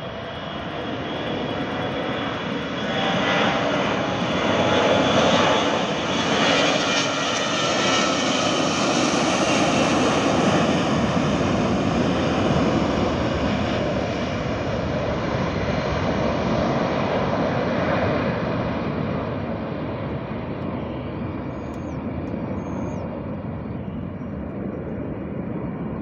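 Twin-engine jet airliner taking off at full thrust. The engine noise swells over the first few seconds as it rolls down the runway and past, holds loud through the lift-off, then slowly fades as the aircraft climbs away.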